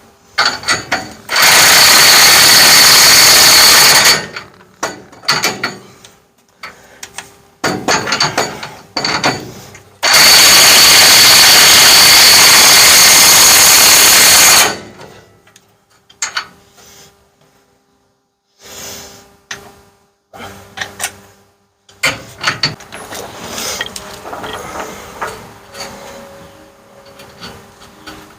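A power tool runs loudly in two long steady bursts, one of about three seconds and one of about five, with several shorter bursts between them. Scattered clanks and knocks of tools and parts follow in the second half.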